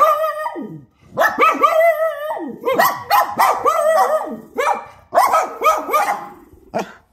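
Small dog barking in quick strings of high-pitched barks, with brief breaks about a second in and around five seconds in. This is alert barking at someone outside the window.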